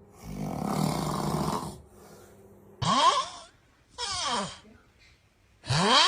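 A person snoring: a rasping snore lasting under two seconds, then three whining exhalations that glide up and back down in pitch, the last one longer.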